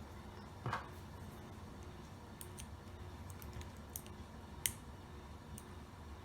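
Homemade lock pick and tension tool working an old Taylor wafer cabinet lock: faint scattered metallic clicks and scrapes as the wafers are raked, with a louder knock about a second in and a sharp click near the end.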